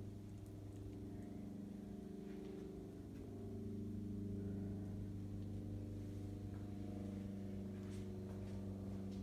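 Steady, faint machine hum with a low drone and several steady overtones, like an electric motor running in a workshop, with a few faint clicks near the end.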